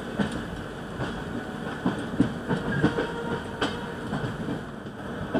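Rajdhani Express passenger coach running on the rails, heard from an open door: a steady rumble of wheels on track with irregular clacks and knocks.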